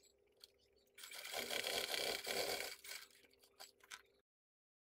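Sewing machine stitching a seam through leather for about two seconds, over a steady motor hum. The sound cuts off suddenly about four seconds in.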